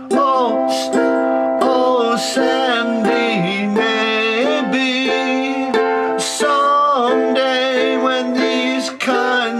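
A ukulele being played with a man singing along, in a small room.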